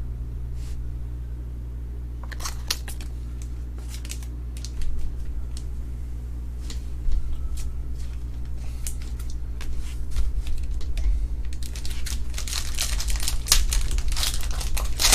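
Plastic wrapper crinkling and tearing as a trading-card pack is opened, with scattered clicks and taps of handling; the crinkling grows dense and loudest in the last few seconds. A steady low electrical hum runs underneath.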